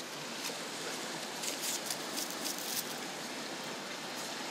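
Steady outdoor hiss with a few light rustles and clicks of dry twigs and grit near the middle, as a hand picks a small plastic card case up off the ground.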